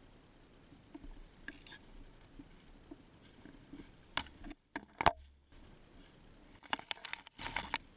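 Branches and leaves scraping and knocking against a helmet camera's waterproof housing while walking through thick brush, heard muffled through the case. There are faint rustles and footfalls, two sharp knocks about four and five seconds in, and a burst of scraping near the end.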